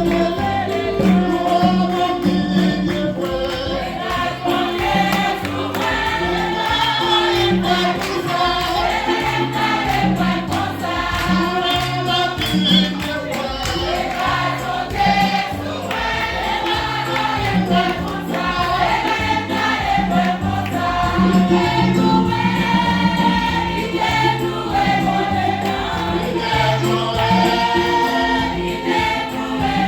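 A church choir singing a hymn with instrumental accompaniment: a steady bass line and light rhythmic percussion under the voices.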